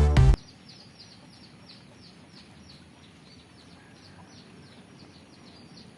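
Electronic background music cuts off suddenly just after the start, then a bird chirps faintly, a fast run of short high chirps that fall in pitch, about three a second, over a faint hiss.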